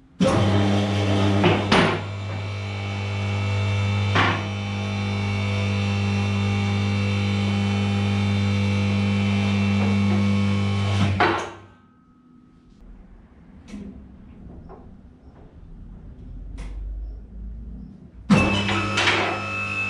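Electric motor and hydraulic pump of a EuroLifter 3500U scissor lift's power unit running with a steady hum as the platforms rise. It stops about 11 seconds in, leaving a few faint clicks, and starts again near the end.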